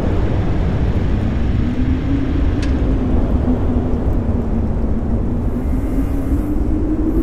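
Low, steady rumbling ambience of a desolate, windswept landscape, with a wavering droning hum running through it.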